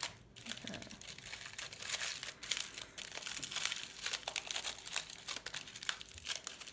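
Kitchen foil crinkling as it is scrunched, pressed and folded by hand into a bird shape, an irregular run of sharp crackles.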